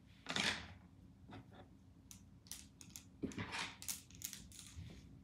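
A swish near the start, then a run of light clicks and rustles: clothes hangers being handled and put away.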